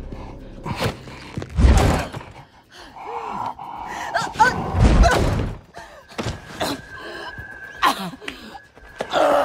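Heavy thuds and slams of a violent struggle inside a car, with a woman's short gasping cries between the blows. A steady high tone joins about six seconds in.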